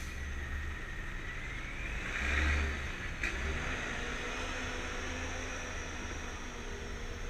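Engine and road noise of slow-moving car traffic: a steady low rumble with a hiss that swells louder for about a second around two seconds in. There is a short click at the start and another about three seconds in.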